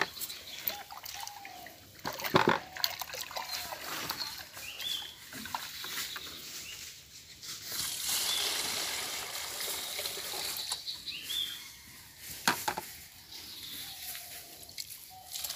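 Water poured from a plastic bucket into a plastic basin, a steady splashing for a few seconds about halfway through, with a few sharp knocks of plastic on plastic.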